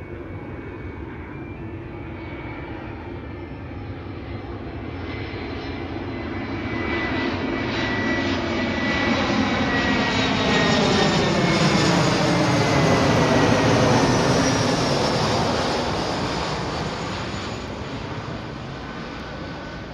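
Jet airliner flying past. Its engine noise swells to a peak about two-thirds of the way through and then fades, with a faint whine that drops in pitch as it passes.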